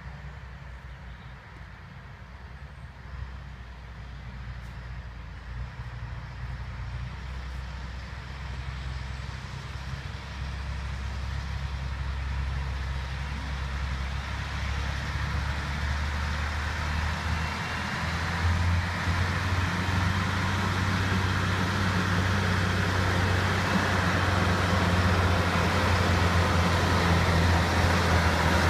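Spanish-built Dodge lorry towing a loaded low-loader, its engine running steadily and growing louder as the lorry approaches. The engine note steps up a little about two-thirds of the way through.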